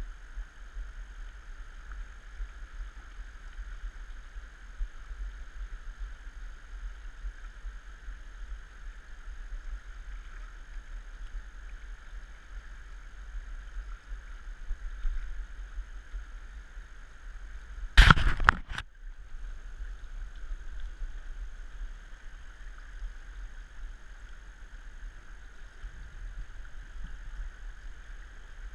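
Steady rushing of river water with a low wind rumble on the microphone. A single sharp knock about two-thirds of the way through is the loudest sound.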